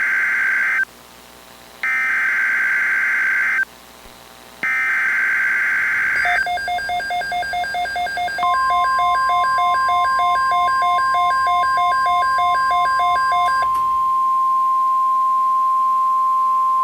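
Emergency Alert System SAME header: three short bursts of screeching digital data tones that encode a new weather alert, here a severe thunderstorm watch. Then an alert tone beeps about three times a second, and the steady single-pitched NOAA Weather Radio 1050 Hz warning alarm tone joins it and holds to the end.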